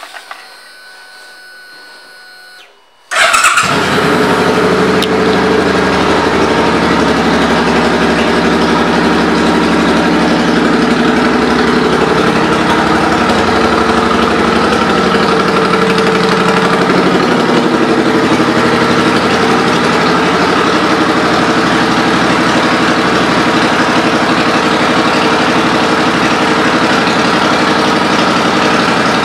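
Suzuki Boulevard C50T's V-twin, fitted with Vance & Hines exhaust pipes, starting abruptly about three seconds in after a faint hum. It then settles into a steady, loud idle.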